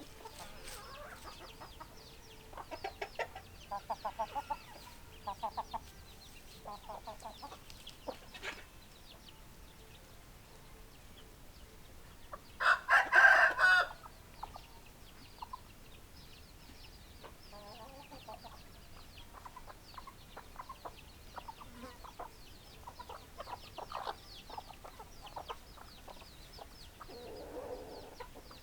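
Chickens clucking in short runs, with one loud call lasting just over a second about halfway through, then scattered quieter clucks.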